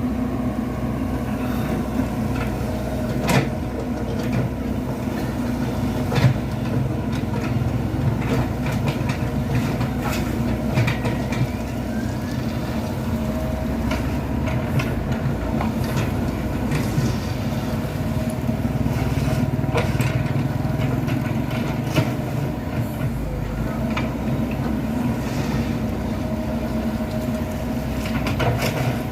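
Diesel engine of a Komatsu PC78 excavator running steadily under load as it works soil, with a few sharp knocks now and then.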